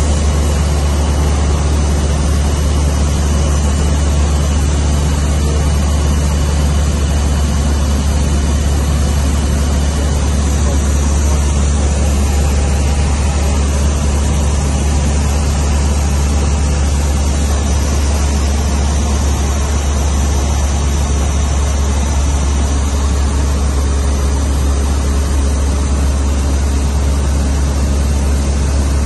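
Cessna 152's four-cylinder Lycoming engine and propeller heard inside the cockpit in flight: a loud, steady drone with a strong low hum.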